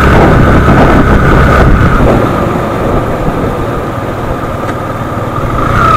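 Motorcycle riding along a road: steady engine and road noise heard from the rider's own bike, easing slightly in the middle.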